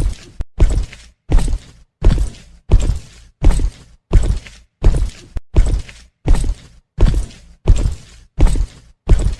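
A steady series of loud, evenly spaced bangs, about three every two seconds, each dying away quickly.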